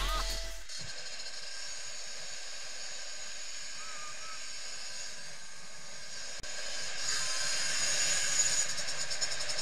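Onboard sound of a motorcycle being ridden, heard through a helmet camera: a steady hissing rush of wind and engine that grows louder about seven seconds in. Electronic music fades out in the first second.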